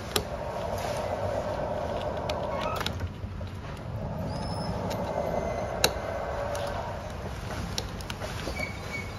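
Small hand screwdriver turning the two screws that hold a green wiring connector in a room-pressure sensor's wall plate, loosening them to free the connector. It makes a steady scraping rasp in two stretches with a short break between, marked by a few sharp clicks, the sharpest about six seconds in.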